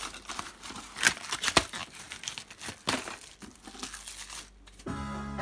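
Clear plastic blister packaging crinkling and crackling as it is handled and torn apart by hand, in a rapid run of sharp crackles. Near the end a steady pitched hum comes in.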